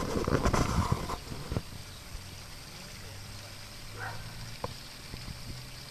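Small wooden water-wheel fountain running into a dog pool: a faint steady hiss of water over a low steady hum. A short burst of knocks and scuffling opens it, and there is a small click about four and a half seconds in.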